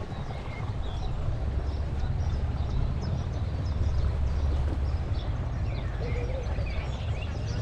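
Low rumble of wind on the microphone of a moving bike, swelling in the middle, with small birds chirping faintly.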